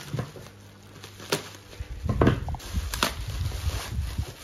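Bubble-wrap packaging being cut and pulled open by hand: plastic crinkling with a few sharp clicks, and low bumps of handling on the table from about two seconds in.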